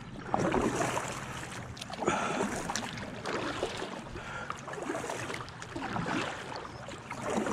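Kayak paddle dipping and pulling through river water, with splashing and water lapping at the hull, the swells coming every second or two.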